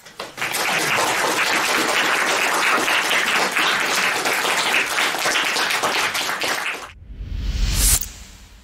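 Audience applauding, dense clapping that cuts off suddenly about seven seconds in. A short rising whoosh over a deep rumble follows and ends sharply a second later, a transition sound effect.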